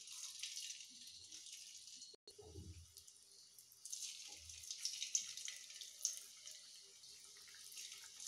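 Onion pakoda batter frying in hot oil in a kadai: a faint sizzle and crackle as handfuls of batter go into the oil, growing fuller about four seconds in as more pieces are added.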